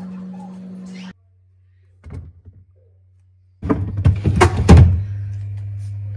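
A steady hum cuts off abruptly about a second in. A few light knocks follow, then a loud burst of clattering thuds and knocks lasting about a second and a half, and after that a lower steady hum.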